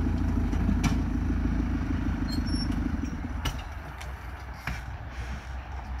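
A JCB 3CX backhoe loader's four-cylinder diesel engine running as the machine moves slowly, with a few sharp clanks. The engine sound drops in level about halfway through.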